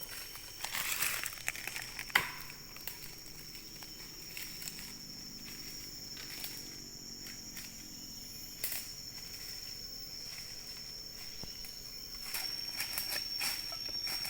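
Footsteps and rustling through dry leaf litter and undergrowth, with scattered sharp snaps and crackles that thicken near the end, over a steady high-pitched whine.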